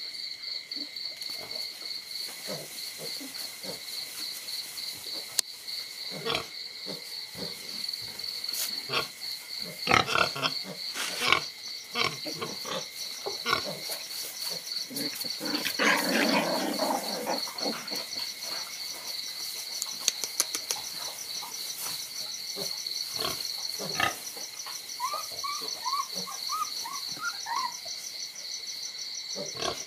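Crickets chirping in a steady, fast pulsing trill at two pitches. Close by are a puppy and a kitten snuffling and scuffling, with a louder rustling burst about halfway through and a run of short, high chirpy calls near the end.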